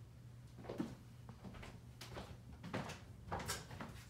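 Packaging being handled as a statue piece is taken out of its box: scattered rustles and light knocks, the sharpest about a second in and again near the end.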